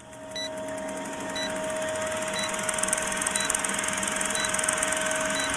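Old film projector sound effect: a steady fast clatter with hiss and a low hum, with a short high beep once a second, counting down the film leader.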